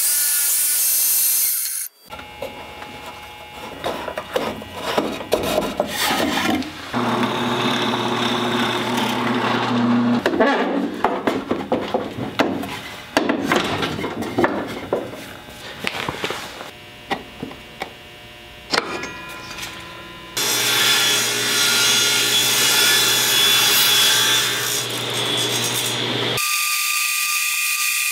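A band saw cutting through a wood block, then knocks, scrapes and clatter of wooden parts being handled and fitted by hand. Near the end a Craftsman table saw runs steadily, ripping a thin strip of wood.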